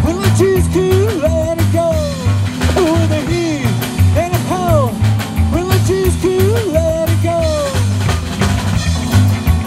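Live band of electric guitar, upright bass and drum kit playing an instrumental break: the lead guitar plays swooping bent notes over a steady walking bass pulse and drums.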